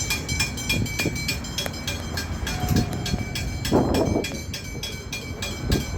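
Railway level-crossing bells ringing in a fast, even rhythm of several strikes a second as the crossing gates go down, over a low rumble.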